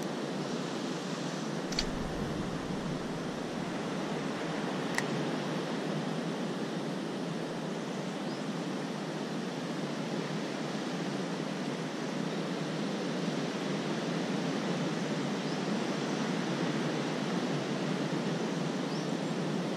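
Steady rushing noise of ocean surf, with two short clicks in the first five seconds.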